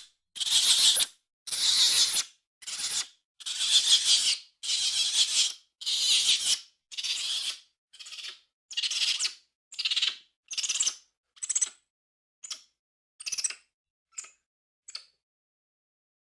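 Capuchin monkey chattering: a string of short, high squeaky calls, about one a second. The calls grow shorter and fainter toward the end and stop about 15 seconds in.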